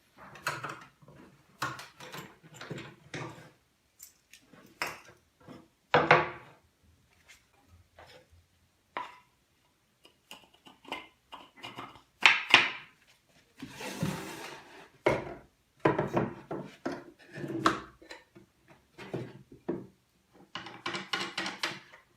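Irregular knocks, taps and clatter of wooden parts and hand tools being handled and set down during woodworking assembly.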